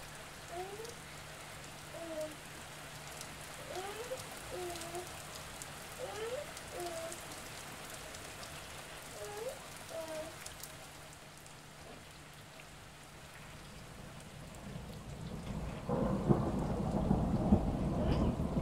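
Rain falling, with a low rumble of thunder building over the last few seconds. Short rising chirps repeat through the first half over a faint low hum.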